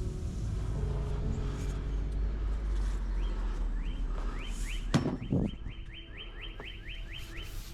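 A bird chirping in quick series of short rising notes over a steady low rumble, with a sharp click about five seconds in.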